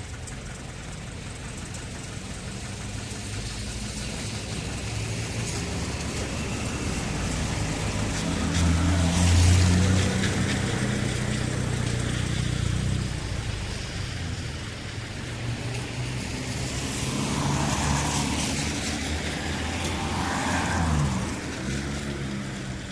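Street traffic ambience: car engines running under a steady wash of road noise, with a vehicle passing close about nine seconds in and more traffic swelling near the end.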